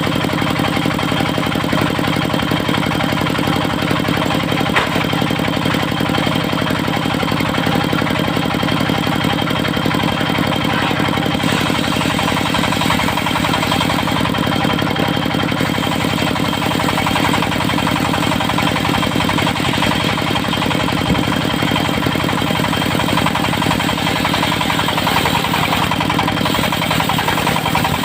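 Engine of a portable circular-saw sawmill running steadily with a fast, even beat, and a steady high tone above it.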